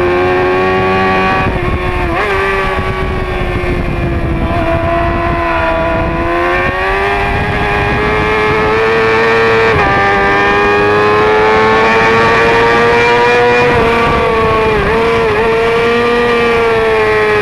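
Yamaha middleweight race motorcycle's engine at high revs on track, heard from an onboard camera with wind rush. The engine pitch slowly rises and falls through the corners, with brief quick dips about three-quarters of the way in.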